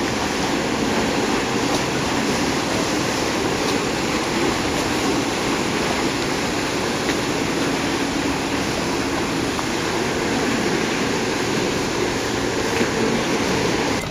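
Paddle wheels of the Lake Garda paddle steamer Italia churning the water as she passes, a steady splashing rush.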